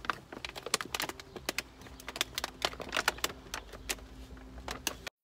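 Rigid clear plastic blister packaging of a paintbrush set being handled and pried open: a steady run of small crackles and clicks, cutting off suddenly just before the end.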